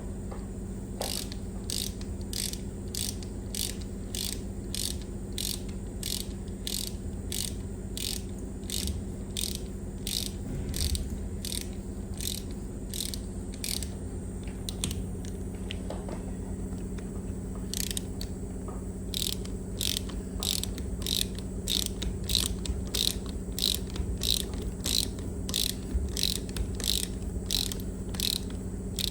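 Ratchet wrench clicking in a steady run of about two clicks a second, pausing for a few seconds midway, over a constant low hum.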